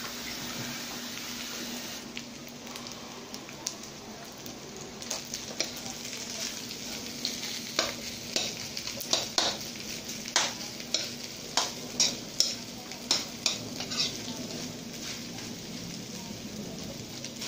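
Egg fried rice sizzling in a nonstick pan while a metal spatula stirs and scrapes it. From about five seconds in, the spatula knocks against the pan roughly twice a second.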